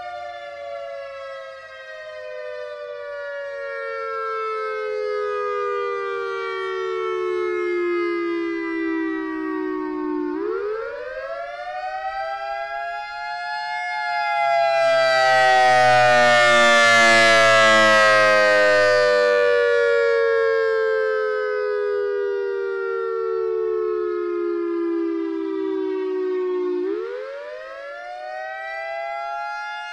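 Federal Signal EOWS 612 electronic outdoor warning siren sounding its wail: a tone falling slowly, sweeping quickly back up about ten seconds in, falling slowly again, and rising once more near the end. It is loudest in the middle, as the rotating horn array turns toward the listener.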